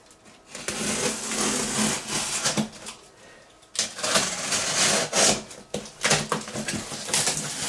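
Utility knife slicing through the packing tape along the seams of a cardboard box. It comes in three runs, with a short pause about three seconds in and a brief one near six seconds.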